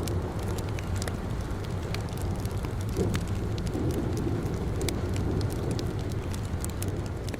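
Steady rain with a low rumble underneath, mixed with the frequent small pops and snaps of a crackling wood fire.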